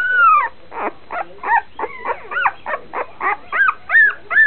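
A dog whining: one long, high, arching cry, then a run of short whines that quicken to about four a second near the end.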